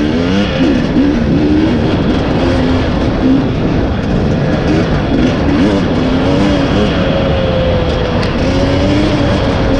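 2020 KTM 300 EXC single-cylinder two-stroke enduro motorcycle engine, its pitch rising and falling over and over as the throttle is worked on a trail ride, over a constant rough, noisy rumble.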